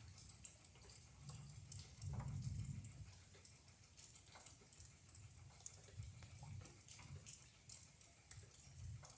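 Rain dripping and pattering in quick irregular ticks during a thunderstorm, with soft low rumbles, strongest about two seconds in.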